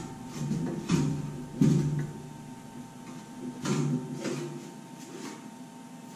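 A small sheet-steel model barn being handled and turned in the hands, giving a few light knocks and scrapes of thin metal, the loudest about a second and a half in, over a faint steady hum.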